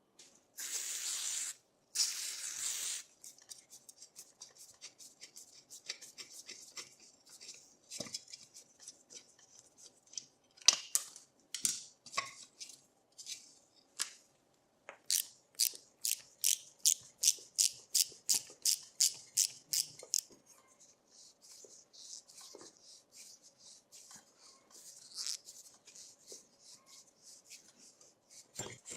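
Hand tools working on the metal parts of a rusty mini dirt bike as it is taken apart. There are two short hisses near the start, then scattered clicks and knocks, and in the middle a run of evenly spaced sharp clicks, about three a second, for around five seconds.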